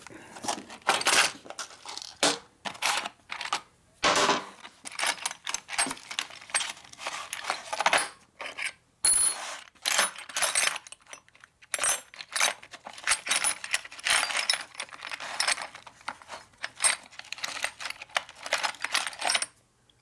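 Steel drill bits and punches clinking and rattling against each other as a hand rummages through a small tray of them, a quick irregular run of clinks.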